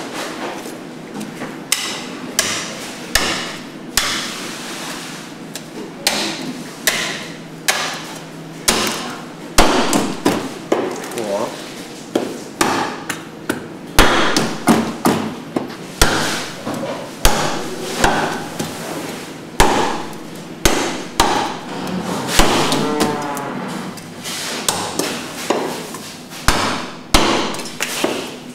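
Heavy Chinese cleaver chopping a large grouper's head and bony frame into pieces on a thick wooden chopping block: dozens of sharp whacks at an uneven pace, roughly one every second or so.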